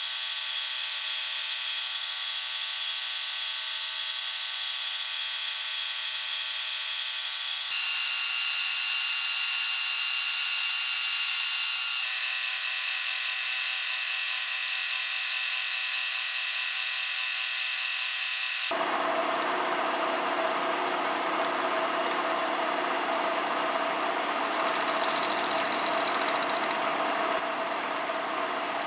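Milling machine spindle running with an end mill cutting into a steel rifle barrel, a steady machining whine. The sound changes abruptly three times, at cuts between shots.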